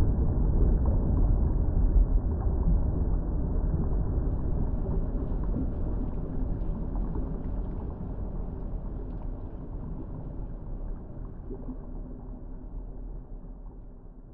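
Water bubbling with a low, muffled rumble and a few faint higher pops, fading out gradually toward the end.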